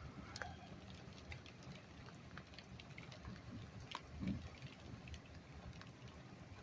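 Light rain falling, with scattered raindrops ticking and pattering over a low rumble. About four seconds in there is a single louder low thump.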